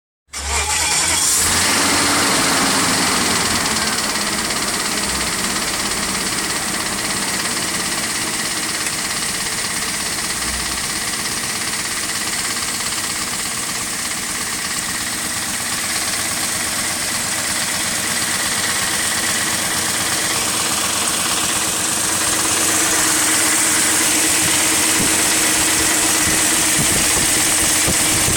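BMW E39 540i's V8 engine running at idle with a rattle. The engine speed drops and settles in the first couple of seconds, then stays steady.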